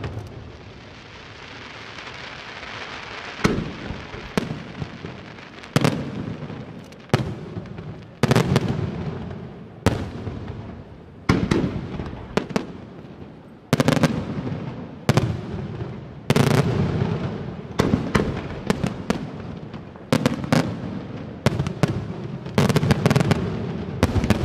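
Aerial fireworks shells of a professional display bursting one after another, a sharp bang about every one to one and a half seconds, each followed by a rumbling echo. A hissing crackle of burning stars fills the first few seconds.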